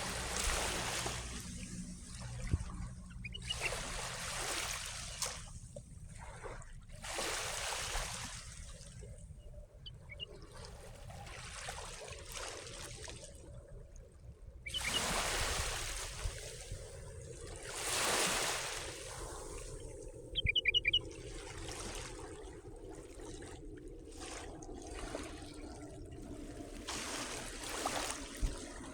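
Small waves of the Sea of Marmara lapping and splashing at the shore, swelling and falling back every few seconds. A short run of high bird chirps comes a little past two-thirds of the way through.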